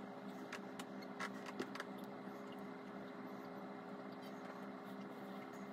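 Quiet room tone with a steady low hum, and a few faint clicks in the first two seconds.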